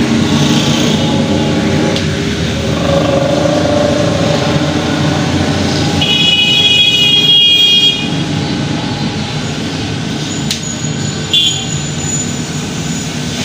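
Steady street-traffic noise from passing vehicles, with a vehicle horn sounding for about two seconds near the middle. A couple of sharp clicks come later.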